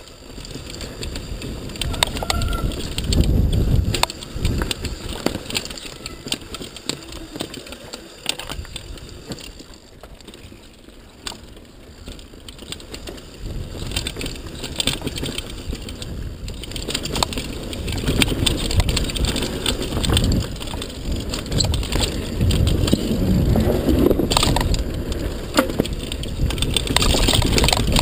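Mountain bike clattering down a rough dirt downhill trail: tyres rumbling over loose dirt, with frequent sharp knocks and rattles from the bike over bumps. It eases off for a few seconds in the middle, then gets louder and busier in the second half.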